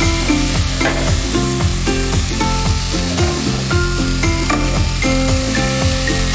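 Chicken feet frying and sizzling in a pan as they are stirred, a steady hiss, with background music playing over it.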